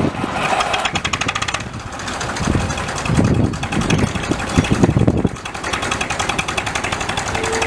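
Tractor engine running with a rapid, even knock. A heavier low rumble swells from about two and a half seconds in until just past five.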